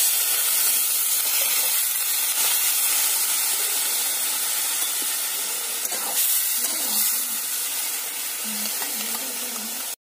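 Water poured into a hot wok of curry hits the pan and sizzles loudly, hissing steadily while a ladle stirs through it. The sizzle slowly dies down toward the end.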